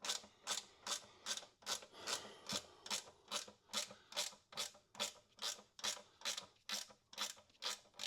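Ratcheting wrench working a 5/16 bolt: a steady run of short ratchet rasps, about two and a half a second, one for each back-swing of the handle.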